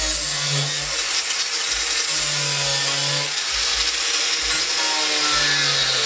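Corded angle grinder cutting and grinding into a plastic panel, running steadily with a harsh rasping hiss as its disc bites the plastic.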